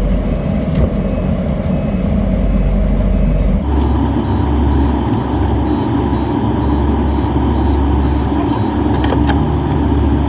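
Crane truck's engine running as it reverses, with a backup alarm beeping at a steady pace; about three and a half seconds in the engine note changes and it runs harder.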